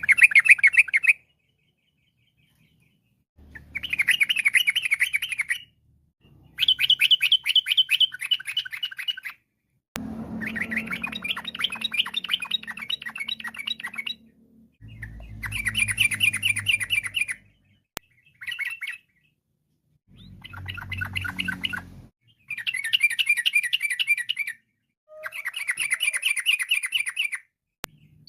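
Yellow-vented bulbul (trucuk) singing: about ten phrases of fast, evenly repeated chattering notes, each phrase a second to a few seconds long, with short silent gaps between.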